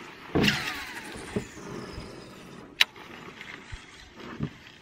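A cast with a fishing rod and casting reel: a rush as the rod swings, and the reel spool whirring down in pitch as the crankbait flies out. A single sharp click near three seconds as the reel is engaged, then the reel being cranked to bring the lure back.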